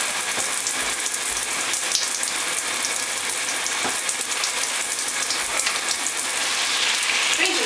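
Shower water spraying steadily onto a plastic shower tray and onto a blue-and-gold macaw bathing in it.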